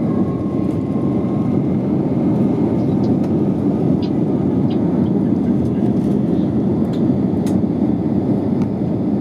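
Airbus A321 engines and rushing air heard inside the passenger cabin as a loud, steady low noise during takeoff or climb.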